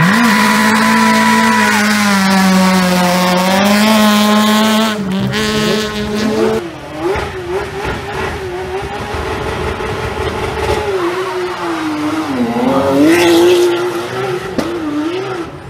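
Peugeot 208 rally car's engine held at high revs at full throttle as it passes, its note dipping slightly and then rising again. After about six and a half seconds the engine note drops back and wavers up and down.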